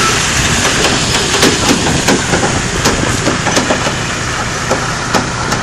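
Trailers of a heavy road train loaded with steel rails rolling past on a gravel road: steady tyre noise over gravel, with irregular clicks and knocks from the wheels, load and trailer frame.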